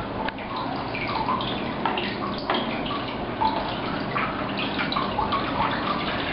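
Water splashing in a darkroom wash tank as an X-ray film on its hanger is rinsed clean of processing chemicals: a steady water noise with many small irregular splashes and drips.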